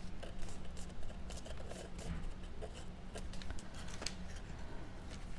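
Cardstock being handled and pressed together by hand: light paper rustling with scattered small taps and clicks.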